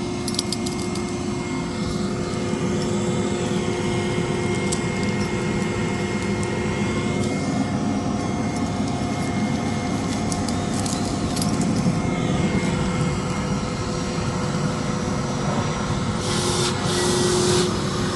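Henry canister vacuum cleaner motor running steadily with a constant whine, with a short burst of hissing near the end.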